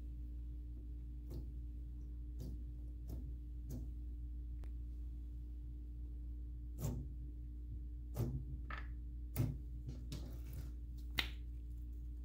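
Stiff clear jelly slime pressed and stretched by hand, giving scattered sticky clicks and pops, sparse at first and more frequent and louder in the second half. A steady low hum runs underneath.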